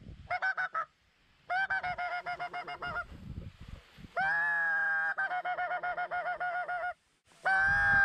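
Goose honking in several runs of rapid, regular pulses, with short pauses about a second in and near the end; one run about four seconds in opens on a held note before breaking into pulses.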